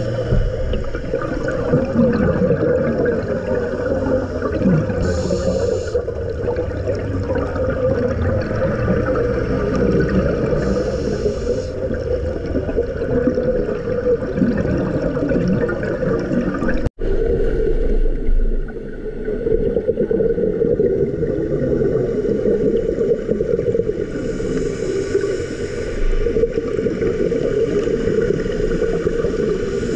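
Underwater sound picked up by a diver's camera: a steady muffled rumble with short hissing bursts of scuba exhaust bubbles every several seconds. The sound breaks off for an instant a little past halfway through.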